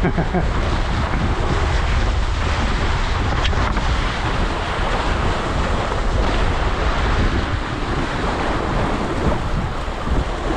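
Strong wind buffeting the GoPro's microphone, with water rushing and slapping against a catamaran's hulls as it sails through heavy chop.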